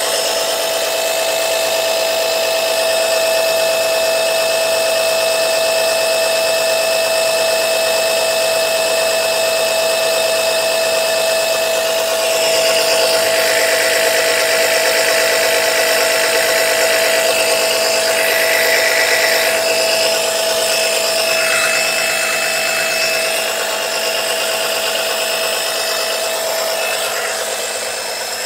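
Small oil-suction pump's motor running steadily with a constant whine, a rougher hiss joining it in the middle. It is drawing no oil: the owner believes leaks in the hose stop it from forming a vacuum.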